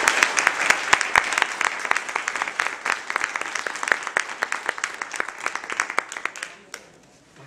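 Audience applauding; the clapping gradually thins out and dies away about six and a half seconds in.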